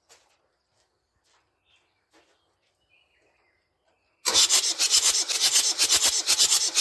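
Near silence, then about four seconds in the starter motor suddenly begins cranking the Land Rover 12J 2.5-litre diesel over with its fuel cut off: a loud, rasping, rapidly pulsing churn. The engine is being turned over for a compression test on cylinder three.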